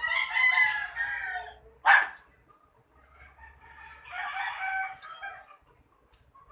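A rooster crows twice, the second crow quieter, with a single dog bark about two seconds in.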